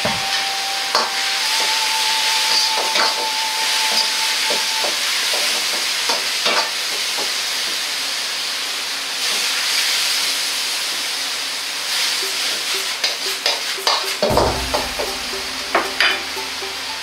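Vegetables sizzling as they are stir-fried in a hot wok, with a metal ladle scraping and knocking against the wok; the knocks come thick and fast toward the end.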